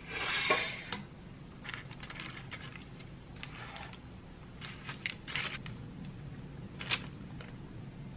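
Disposable plastic glove crinkling as it is pulled onto a hand. Scattered light clicks and rustles of baking paper and tins being handled follow, with one sharper click about seven seconds in, over a low steady hum.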